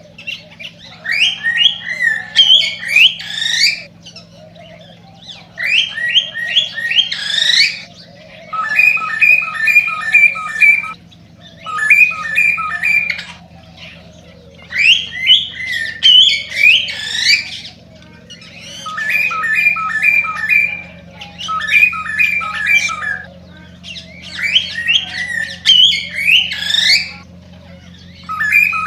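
Male cockatiel singing its excited courtship song: repeated short bouts of whistled notes, some a fast run of repeated chirps and some rising whistles, each bout a couple of seconds long with short pauses between. A faint steady low hum runs underneath.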